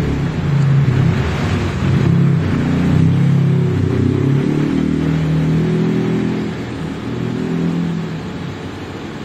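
A motor vehicle's engine running, its pitch shifting; it is loudest over the first six seconds, then eases off.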